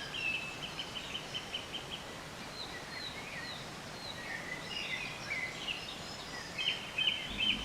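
Small birds chirping: short falling calls and a few held high notes over steady outdoor background hiss.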